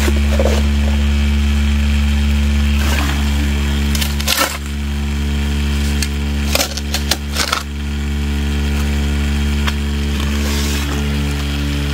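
A 12V vibrating motor bolted to a bucket classifier runs with a steady, loud hum, shaking the classifier on its metal bucket. Shovelfuls of gravel and clay scrape and drop into it, giving several sharp clatters.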